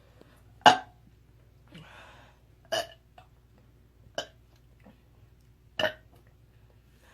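A woman burping four times in quick succession: short, sharp burps about a second and a half to two seconds apart, the first the loudest, with a breath drawn between the first and second.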